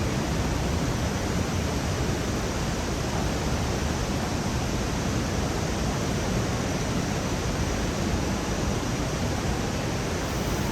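Steady, even rush of a large waterfall's falling water, unbroken throughout.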